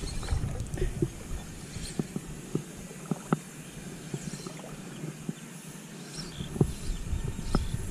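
Low rumbling outdoor noise with scattered faint clicks and ticks.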